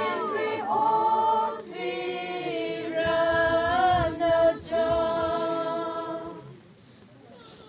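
A group of voices singing together in long held notes, stopping about six and a half seconds in.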